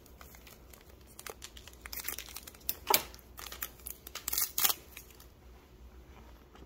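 Foil wrapper of a Pokémon booster pack crinkling and being torn open by hand, in a series of short crackles. The loudest comes about three seconds in and a cluster follows near four and a half seconds.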